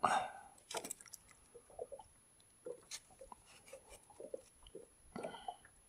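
Hands working tangled fishing line and a feathered lure off a small landed zander: scattered soft rustles, scrapes and small clicks, the loudest right at the start.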